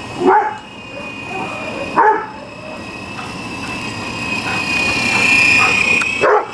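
Golden retriever barking three times at a toy RC helicopter, over the helicopter's steady high-pitched rotor and motor whine, which gets louder about five seconds in.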